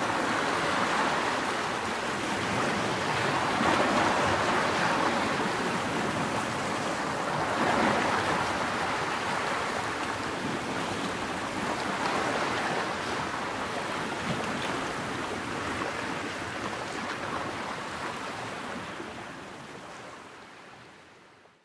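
Steady rushing of water, swelling a little about four and eight seconds in, then fading out over the last few seconds.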